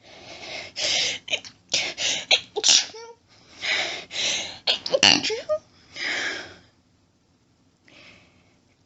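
A person's sneezing fit: a string of strong sneezes, only partly held back, with quick gasping breaths between them. It dies away after about six and a half seconds, and a faint breath follows.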